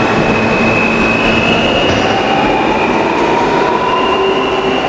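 New York City subway train running through the station, its steel wheels squealing on the rail with steady high-pitched tones over a loud rumble, and a lower tone slowly rising in pitch partway through.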